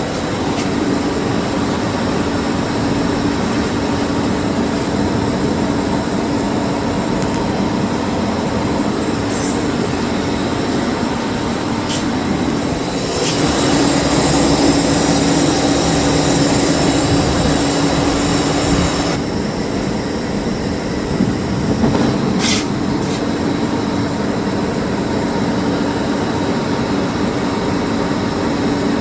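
Electric motor and drive cooling fan running steadily under a repaired ABB ACS530 variable-frequency drive on test, with a constant hum. About halfway through the sound grows louder and hissier for some six seconds, then settles back; a few short clicks.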